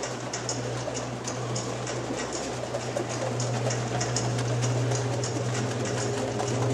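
Saxophones in an experimental concert piece: a steady low drone that swells louder in the second half, over a breathy hiss and light, regular ticking.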